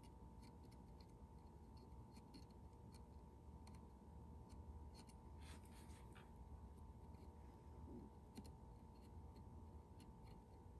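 Near silence: a faint steady hum with scattered small clicks from hands working a soldering iron and wire at an LED strip.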